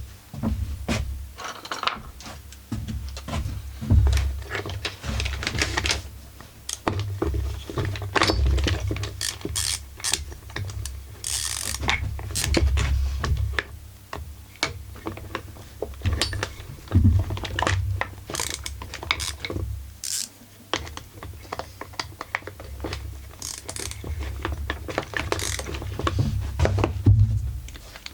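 Hand tools working on the screws of a chainsaw crankcase: irregular metallic clicks, ratcheting and knocks, with low handling thumps.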